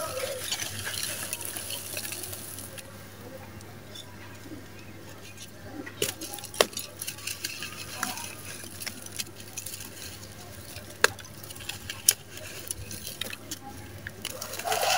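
Dry, gritty sand-cement lumps crushed and crumbled by hand: a steady grainy crunching and trickling of falling grit. Several sharp cracks stand out as pieces snap, around six, six and a half, eleven and twelve seconds in.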